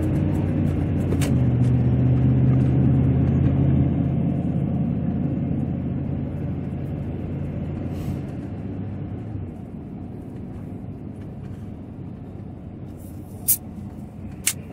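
Chevrolet Silverado pickup's engine and road noise heard inside the cab as it pulls onto a highway on-ramp. The engine hum is strongest in the first few seconds, then eases off and fades into steady tyre and road noise. Two sharp clicks come about a second apart near the end.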